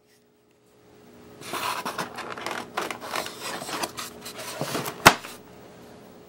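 Irregular rubbing and scraping scuffs lasting a few seconds, with one sharp click about five seconds in.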